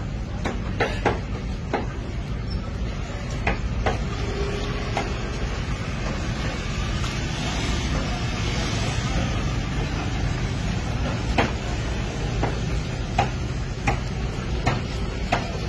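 Raw chicken being cut and pulled apart with a knife: scattered sharp clicks and snips, a cluster near the start and more toward the end, with soft rustling of flesh and skin in between, over a steady low rumble of street traffic.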